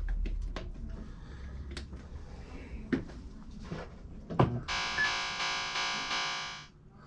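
Williams High Speed pinball machine powered up: scattered sharp clicks, then about two seconds of a steady synthesized tone from its speaker that cuts off suddenly.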